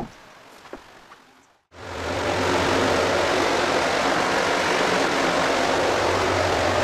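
A few quick handling knocks, then from about two seconds in a loud, steady mechanical whir with a low hum, as of a motor running.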